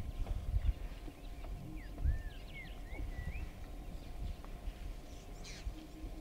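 African buffalo herd moving through the bush, with low thuds of hooves and bodies, and a few short chirping bird calls about two to three seconds in.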